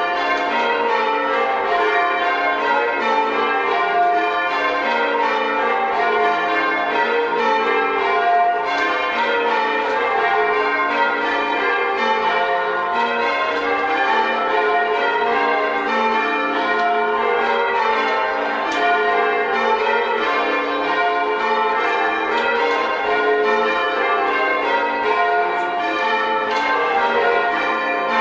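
Ring of six church bells, a 14 cwt Taylor-restored ring, being change-rung: the bells strike one after another in a steady, unbroken rhythm, with a boomy tenor.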